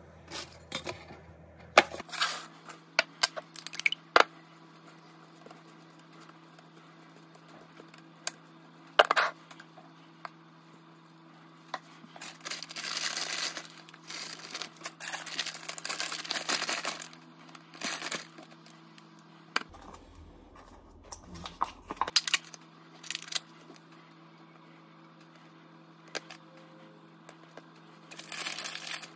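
Hands topping tortilla pizzas on a metal sheet pan: scattered light clicks and taps as pepperoni slices and olives are set down, and a stretch of plastic-bag rustling and shaking in the middle as shredded cheese is sprinkled on. A steady low hum runs underneath.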